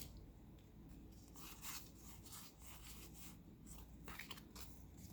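Faint rustling and crinkling of a foil booster pack and trading cards being handled, in a few short strokes over near silence.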